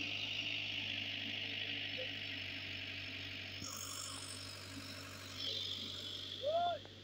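Caterpillar excavator's diesel engine running steadily, with a high hiss over it that fades about halfway through. Near the end, a short loud call rises and falls in pitch.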